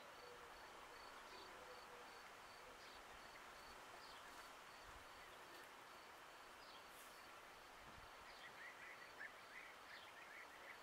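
Near silence: faint outdoor ambience, with a faint high chirp repeating evenly about three times a second and a few faint bird twitters near the end.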